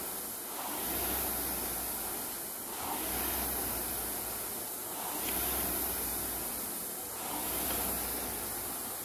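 Concept2 rowing ergometer's air-resistance flywheel whooshing with each hard stroke, rising and falling about once every two seconds, four strokes in all.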